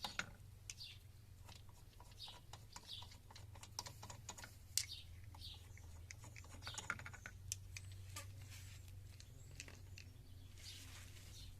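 Scattered light clicks, taps and clinks of hand tools and metal parts while a car's rear wheel brake assembly is being taken apart, over a steady low hum.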